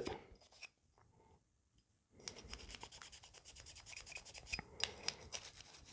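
Faint scrubbing of a cleaning brush over a fouled revolver, an irregular rubbing with light clicks, starting about two seconds in after a short silence.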